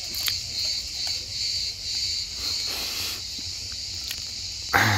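Insects chirping in a high, pulsing rhythm, about two pulses a second. Near the end there is a sudden loud thump and rustle.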